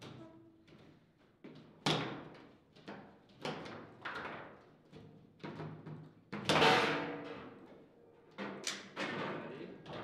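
Table football ball and rods knocking against the table: irregular sharp knocks as the ball is passed, trapped and shot, with one loud, ringing hit about six and a half seconds in.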